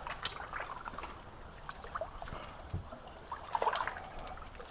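Light splashing and trickling of water, with scattered small clicks and knocks, as a hooked crappie is lifted out of the water beside the kayak.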